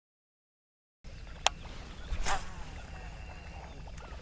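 A second of dead silence, then outdoor ambience with birds calling. A sharp click comes about a second and a half in, and a brief louder rustle a little after two seconds.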